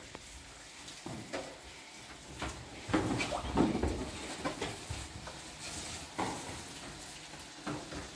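Dishes and a plastic dish rack being handled at a kitchen sink: scattered light knocks and clatter, a little louder around the middle.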